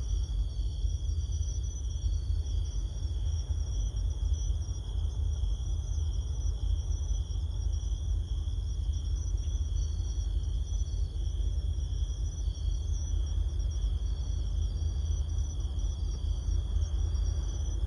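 Crickets trilling steadily at several high pitches over a constant low rumble.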